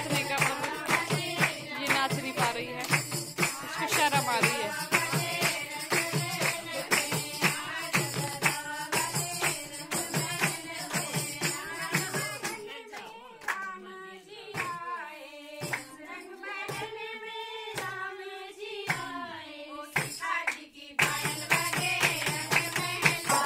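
Women singing wedding folk songs to a percussion beat. About halfway through, the beat drops out and the voices sing on alone for several seconds; the beat comes back near the end.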